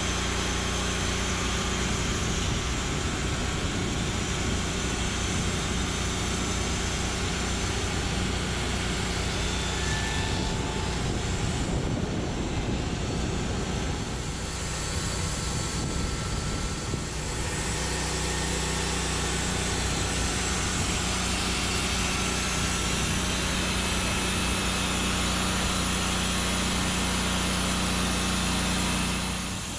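Engine of a Norwood Lumbermate Mark IV band sawmill running steadily at speed, dipping slightly about halfway through.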